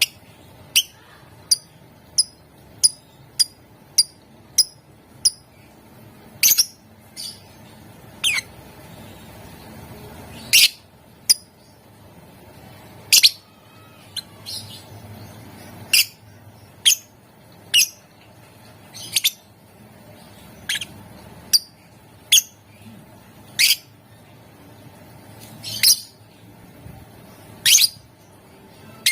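A lovebird calling with shrill, high chirps and squawks. In the first five seconds it gives an even run of short chips about twice a second; after that come louder, longer sharp calls every second or two.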